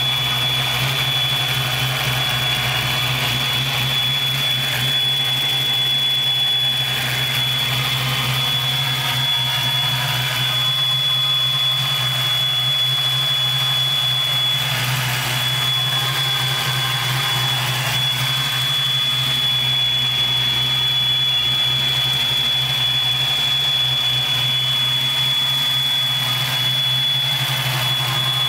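Vortech-supercharged 306 ci Ford V8 (stroked Boss 302 block) idling steadily, with a constant high whine over the low engine hum.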